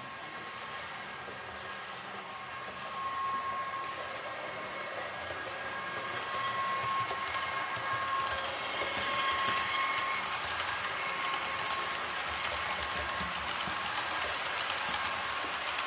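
A train of tank wagons running on the rails, with a steady electric whine and a clicking rail noise that grows louder from about a third of the way in as it draws nearer.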